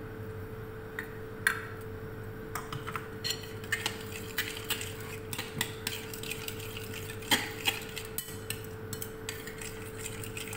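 Metal spoon clinking and scraping against a glass mixing bowl as a thick yogurt, egg and saffron mixture is stirred, in quick irregular taps, over a steady low hum.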